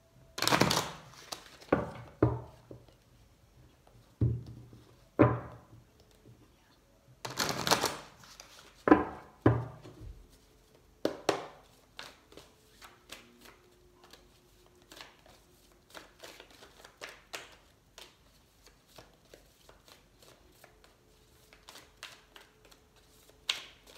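A deck of oracle cards being shuffled by hand: several loud rustling bursts in the first ten seconds, then a long run of softer, quick flicks and taps as the cards are worked through.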